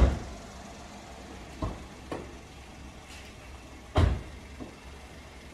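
A handful of dull thumps over a steady low outdoor rumble. The loudest comes right at the start and another about four seconds in, with softer ones in between.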